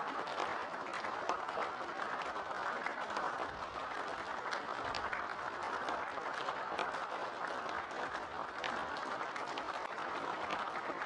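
A large crowd applauding steadily, a dense wash of clapping with individual sharp claps standing out.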